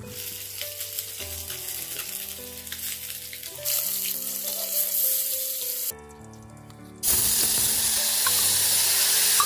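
Food sizzling in hot oil in a cooking pan, a steady hiss that grows louder partway through, breaks off about six seconds in and comes back louder a second later, with faint background music underneath.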